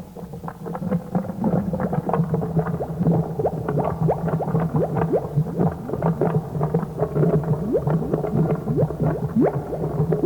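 Bubbling, gurgling sound effect of a witch's cauldron, many quick rising bubble pops over a steady low eerie drone. It starts suddenly.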